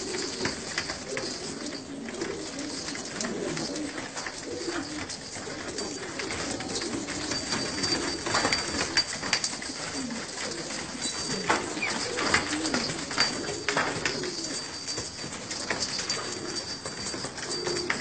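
Domestic pigeons of local baladi stock cooing, several birds overlapping throughout, with scattered short clicks among them.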